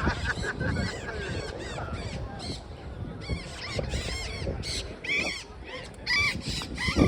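Parrots calling: many short, repeated calls in quick bursts, the loudest near the end.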